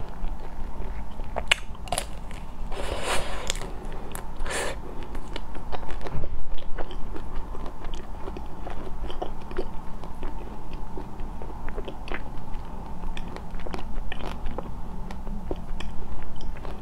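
Close-miked biting and chewing of a taro-flavoured ice cream bar: a few loud crunching bites in the first five seconds, then softer chewing with many small clicks.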